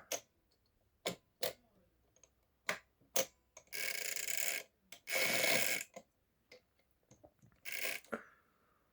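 Erika S portable typewriter's mechanism clicking as it is worked by hand, among it the small levers that reverse the ribbon direction: a handful of sharp, separate clicks, then two longer rushing sounds of about a second each in the middle and a shorter one near the end.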